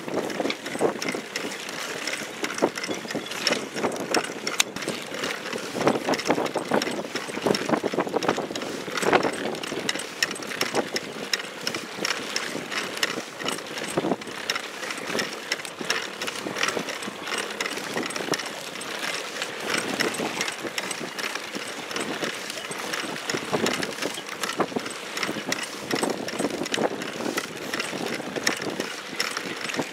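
Choppy water slapping and splashing against the hull of a small inflatable boat, with rapid clicks and rattles from its aluminium tube frame.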